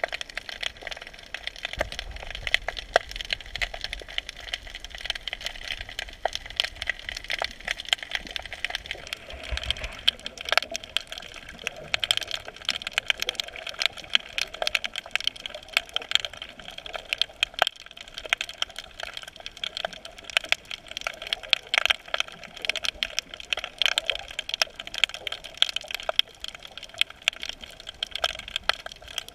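Dense, irregular underwater crackling of countless sharp clicks, typical of snapping shrimp colonies on a rocky reef, picked up by a camera held below the surface. A low rumble of water movement runs under it for the first third.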